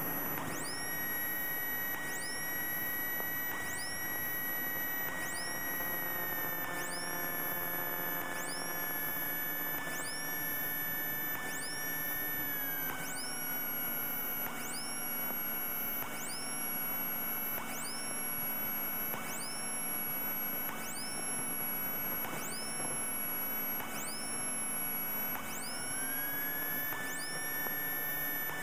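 Electrical whine and tones on a Cessna 172's intercom audio feed: a steady whine that glides down in pitch twice and back up near the end, with a faint high rising chirp repeating about every second and a quarter.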